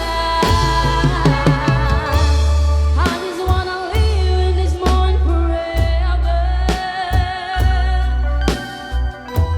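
Band music, a pop ballad: heavy steady bass, drum hits and a sustained melody line that wavers in pitch.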